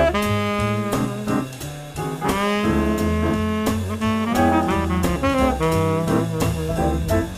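A saxophone playing a swing jazz line, with held notes and quicker runs, over a backing of stepping bass notes and regular drum and cymbal strokes.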